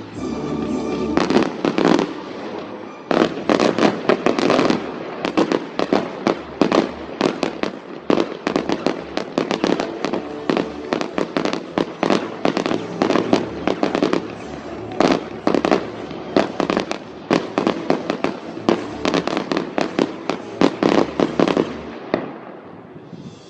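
Fireworks display: a dense, continuous barrage of bangs and crackles, many shots a second, that dies away near the end.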